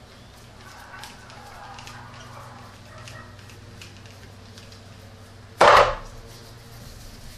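Rubber air-intake duct being twisted and worked loose from the throttle body, with faint rubbing and small clicks, then one loud knock near the end as the duct comes free.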